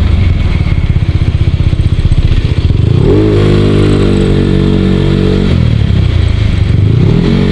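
Yamaha Mio Sporty scooter's single-cylinder four-stroke engine pulsing at low revs, then revving up about three seconds in, holding steady, dropping back and rising again near the end. The owner says its crankshaft side bearing has play.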